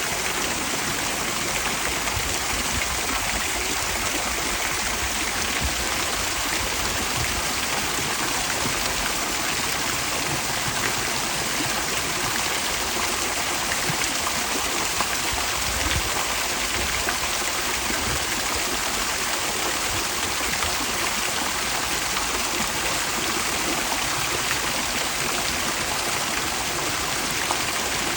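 Falling water splashing steadily, a continuous even rush of fountain water pouring into a pool.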